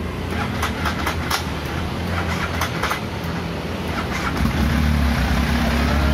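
Benelli Cafe Racer 1130's three-cylinder engine idling, with a few light clicks early on. About four seconds in it grows louder and fuller as the revs rise slightly.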